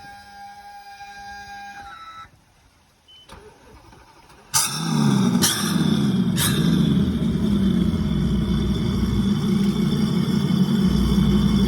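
A steady tone stops about two seconds in; after a short lull, three Mercury Verado V10 outboard engines start one after another, about a second apart, each with a sharp crack, and settle into a loud, steady idle together.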